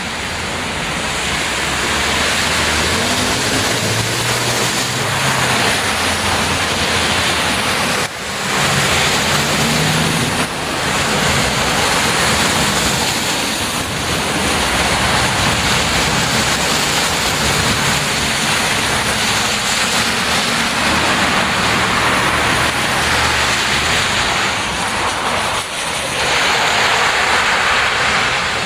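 Heavy rain pouring down in a steady, dense hiss, with a few brief dips in loudness about 8 and 26 seconds in.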